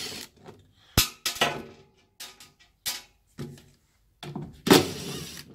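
Makita cordless impact driver hammering out the bolts on an air compressor's cover in several short runs, with metal clinks and a sharp knock about a second in. The last run, near the end, is the longest and loudest.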